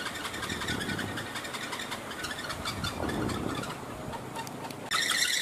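Wooden kolecer wind propeller spinning on its bamboo pole, its hub giving a fast clattering rattle (the 'gebrug') while wind gusts rumble. Near the end a loud, steady high whine (the 'ngereng') sets in abruptly.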